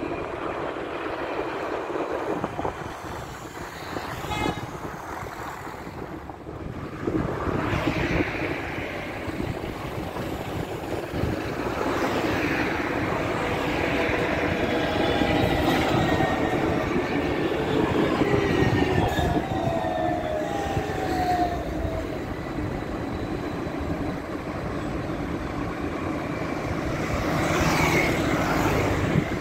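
Low-floor trams running on street track: an Alstom Citadis X05 pulling away, then a Sirio tram approaching with its traction motors whining, the whine falling in pitch as it slows for the stop.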